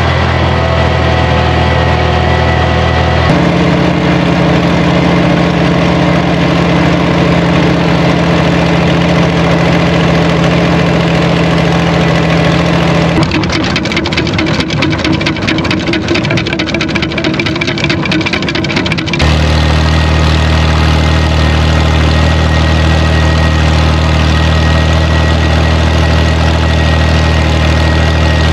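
IH Farmall 460 tractor engine running steadily while pulling a manure spreader. Its note changes abruptly about three seconds in and again twice in the middle, and a stretch of fast rattling clatter takes over for several seconds in the middle.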